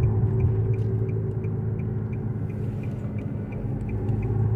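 Nissan Rogue's worn front wheel bearing droning steadily under road noise, heard from inside the cabin while driving; it is the sign of a failing driver's-side hub bearing. A faint light ticking repeats about three times a second.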